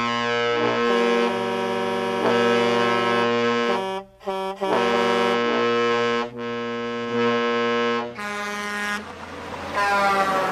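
Semi-truck air horn sounding in a run of long, loud blasts, its pitch stepping from one blast to the next with a brief break about four seconds in. Near the end a blast sags in pitch as it fades into a rush of air.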